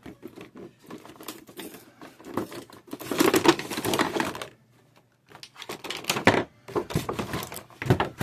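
Action figure packaging being handled and opened: rapid runs of clicks and crackles, loudest a few seconds in and again after a short pause near the middle.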